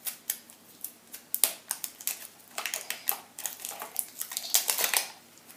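Fingers picking and peeling at the plastic wrapper band on a pink plastic toy capsule: a run of small crinkles and plastic clicks, busiest in the second half.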